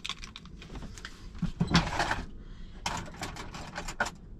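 Kitchen handling noises: a run of light clicks and knocks of utensils and containers being picked up and set down, with two louder noisy bursts about a second and a half and three seconds in.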